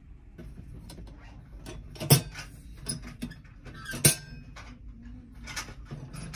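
Plastic clicks and knocks of a round waste-bin lid being handled and its flap pushed open, with two sharp snaps about two seconds apart among lighter taps.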